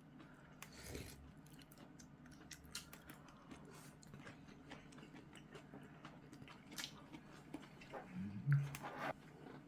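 A person eating: chewing and biting food, with scattered small clicks and a brief low hum about eight seconds in.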